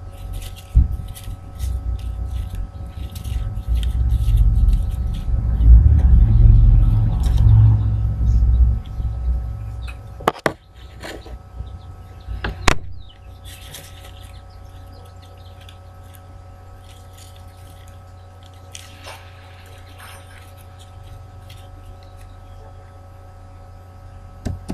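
A low rumble swells over several seconds and fades, followed by two sharp clicks, over a steady electrical hum and light handling noises.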